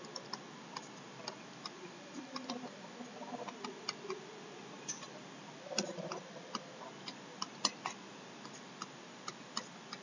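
Light, irregular clicks and taps of a stylus on a tablet screen as handwriting is written, sometimes several in quick succession, then sparser.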